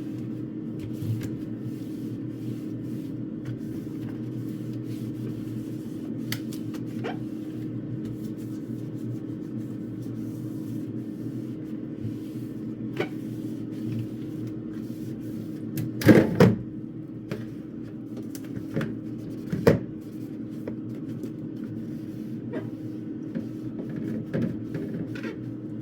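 Knocks and clunks from things being handled while the fridge and freezer are cleaned out, over a steady low hum. The loudest clatter comes about two-thirds of the way through, with another sharp knock a few seconds later.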